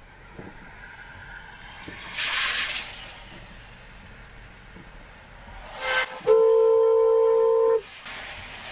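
Car horn: a brief tap, then a steady blast held for about a second and a half.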